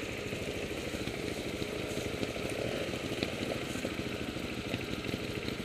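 Trials motorcycle engine idling steadily, a fast even putter with no revving.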